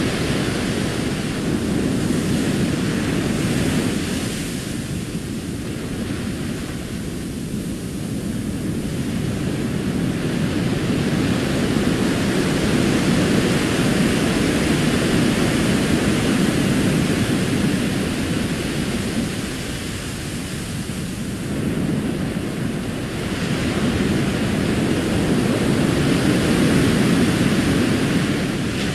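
Recorded ocean surf breaking and washing up a sandy beach: a steady rushing noise that swells and fades with the waves, easing off twice.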